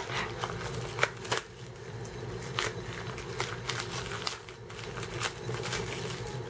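Clear plastic wrapping crinkling and tearing as it is peeled off a small plastic toy basket, a string of irregular sharp crackles and clicks.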